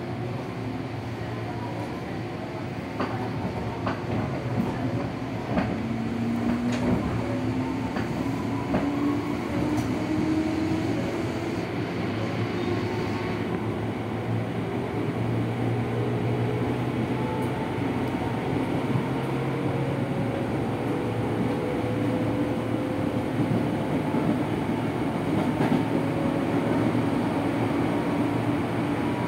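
DC traction motors of a 205-series electric train (motor car MoHa 205-52) whining as the train accelerates, the pitch rising steadily, over the running rumble of wheels on rail, heard inside the passenger car. A few sharp clicks come in the first ten seconds or so.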